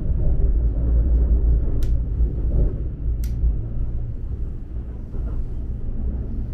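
Steady low rumble of a Kintetsu Shimakaze (50000 series) electric train running, heard from inside a passenger compartment. Two sharp clicks come about two and three seconds in as the table lamp's knob is turned.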